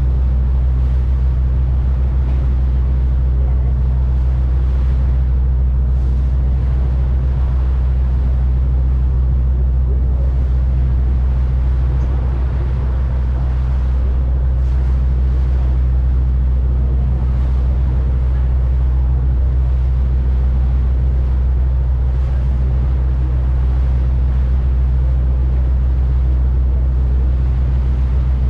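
Steady low drone of a harbour ferry's engines, heard on board while underway, over an even hiss of wind and water.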